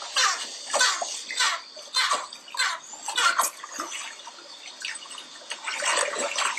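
Dolphins heard underwater: short bursts of sound about twice a second over a steady wash of water noise.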